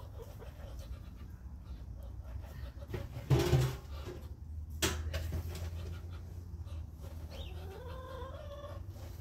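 Domestic hens clucking, with one short, louder call about three seconds in and a fainter rising call near the end. A single sharp knock sounds in the middle.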